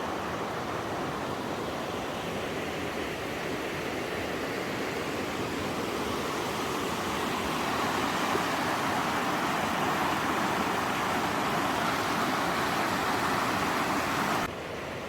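Steady rush of falling water, a full even hiss that grows gradually louder over the first dozen seconds, then drops off suddenly near the end.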